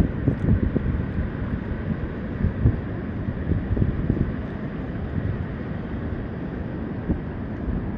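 Wind buffeting the microphone of an Insta360 Ace Pro action camera: an uneven low rumble of gusts, stronger in the first half, which the camera does not suppress.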